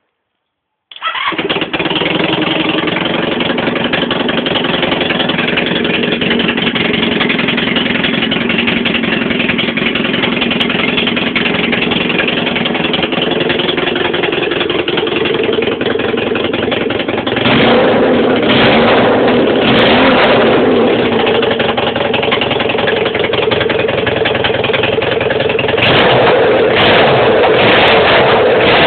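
Honda CB350 motorcycle engine in a home-built off-road buggy catching and starting about a second in, then running steadily. It is revved in short throttle blips about halfway through and again near the end.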